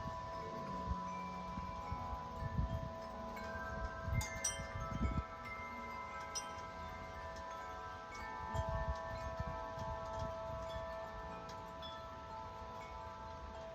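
Corinthian Bells 50-inch wind chime ringing in gusty wind: many long tones overlap and ring on, with fresh strikes about four and six seconds in. Low rumbles of wind gusts come and go under the chimes.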